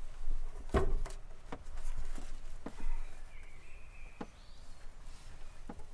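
A string of irregular knocks and clunks, about eight of them, the loudest about a second in, as things are handled and moved about in the van.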